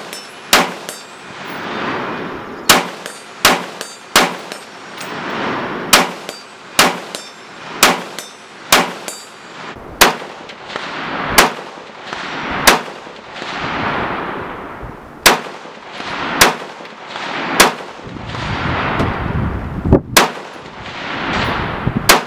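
AR-15 rifle with a 16-inch Dynamic Defense Development Romeo barrel and rifle-length gas system, firing single .223/5.56 shots at steel plates. There are about sixteen shots, mostly a second or so apart with a few longer pauses. Each echoes across the range, with the clang of steel hits.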